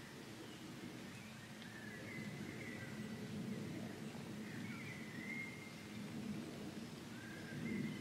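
Woodland ambience: a few short whistled bird calls over a steady low background rumble.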